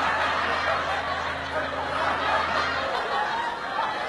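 A group of people laughing and chuckling together in a continuous, overlapping wash of laughter.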